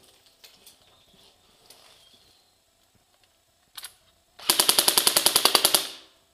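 Airsoft gun firing one full-auto burst of about seventeen rapid shots, roughly twelve a second, lasting about a second and a half. A single short, sharp sound comes just under a second before the burst.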